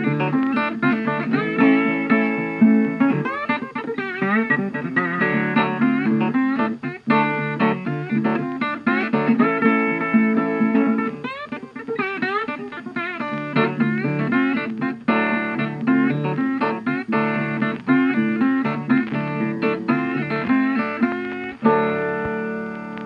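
Background guitar music: plucked notes and chords with some bent, sliding notes, ending on a final chord near the end that rings out and fades.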